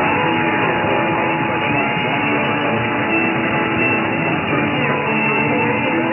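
Radio broadcast music with guitar, sounding dull and narrow-band, with no treble above about 3 kHz.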